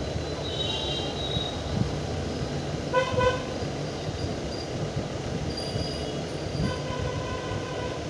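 Horn tooting over a steady low rumble. There is a short blast about three seconds in and a longer, fainter blast near the end, with thinner high tones about half a second in.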